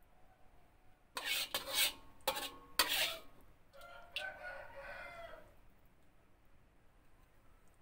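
A metal spatula scrapes the wok in four or five quick strokes. After that, fainter, a rooster crows once for about two seconds.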